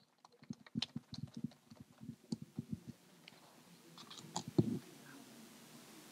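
Scattered light clicks and soft knocks from handling at a lectern microphone and papers, with one louder bump about four and a half seconds in.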